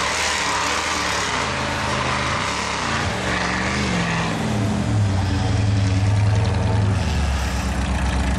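Off-road 4x4 engines running hard in a drag race, the engine note shifting up and down in pitch over a steady rush of noise, and growing louder and deeper about five seconds in.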